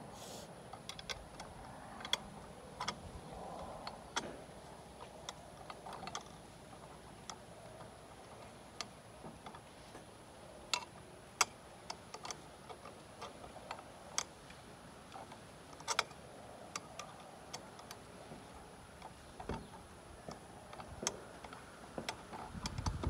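Screwdriver and small screws being worked against the metal housing of an automatic float valve: scattered small metallic clicks and ticks at irregular intervals.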